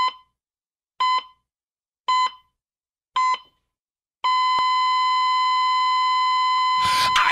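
Electronic countdown beeps: four short beeps about a second apart, then one long held beep at the same pitch, like a race start timer. Near the end a rushing noise comes in as the music starts.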